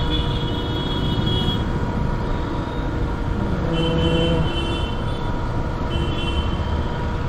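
Riding a KTM RC 200 motorcycle through city traffic: a steady rumble of engine, road and wind noise on the microphone, with vehicle horns beeping three times.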